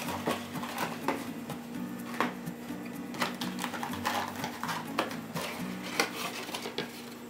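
Background music with low held notes, overlaid with a run of light clicks and taps, the sharpest about once a second.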